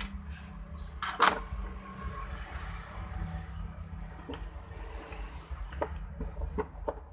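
Small clicks and handling noises of parts being worked on a TV circuit board, with one sharper click about a second in, over a steady low hum.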